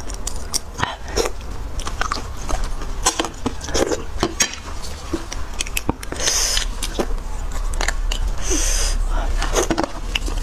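Close-miked eating of spicy beef bone marrow: a metal spoon clicking and scraping against the marrow bones, with wet chewing and two short slurps, about six seconds in and again near the end.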